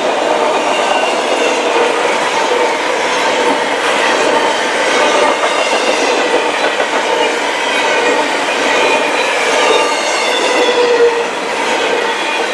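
Long freight train of autorack cars and double-stack container well cars rolling past, a steady rumble of steel wheels on rail with thin, wavering squealing tones from the wheels.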